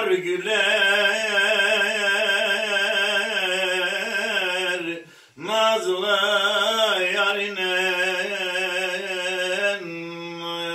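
A man singing an uzun hava, a free-rhythm Turkish folk song, unaccompanied: long held notes with wavering ornaments. He breaks for breath about five seconds in, and near the end he holds a quieter, steady note.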